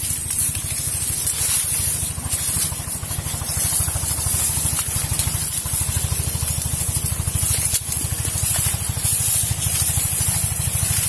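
A small engine running steadily with a fast, even pulse, under a constant high hiss.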